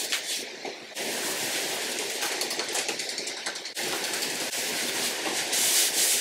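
Paintbrush bristles scrubbing a white paint wash back and forth across a bare pine tabletop, a scratchy swishing that breaks off abruptly twice. Near the end a microfibre cloth rubs over the wood, louder and hissier, wiping off the excess wash.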